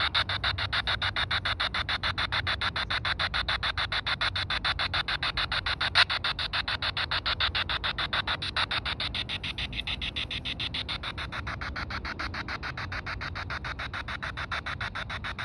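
P-SB7 spirit box sweeping the FM band: radio static chopped into rapid, evenly spaced bursts many times a second. There is one sharper click about six seconds in, and the chopping grows a little quieter after about nine seconds.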